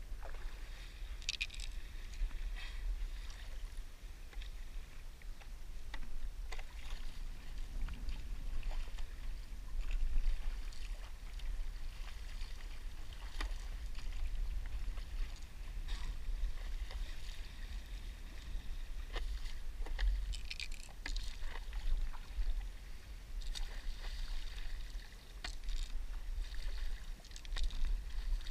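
Stand-up paddleboard paddling on calm sea water: the paddle dipping and pulling through the water, with short splashes and drips at irregular moments over a steady low rumble.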